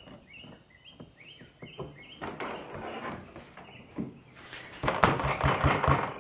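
A Kawasaki Mule's plastic hood being fitted onto steel brackets: clattering, with a run of knocks and thuds in the last second and a half. A bird chirps several times in the first couple of seconds.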